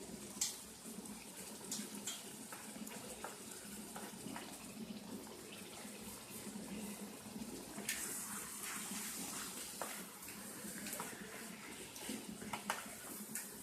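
Pieces of chicken sizzling as they fry in oil in a pan, with a steady hiss and scattered clicks and knocks from stirring the pan.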